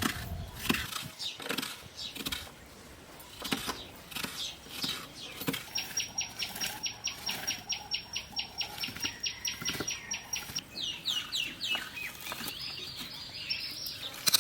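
A bird's trill of rapid even notes, about six a second, lasting about five seconds midway, then a few quick falling chirps. Scattered light clicks and knocks of kitchen work run throughout.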